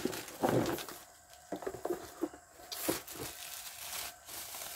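Packaging being handled during unboxing: irregular rustling and crinkling with scattered clicks and knocks.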